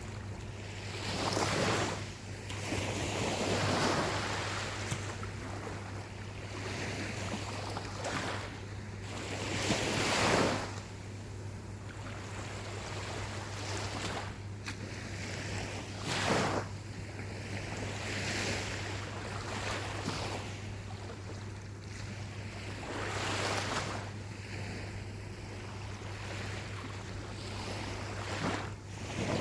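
Gentle ocean waves breaking and washing up onto a beach, a hiss that swells and fades every few seconds, the largest about ten seconds in, over a steady low hum.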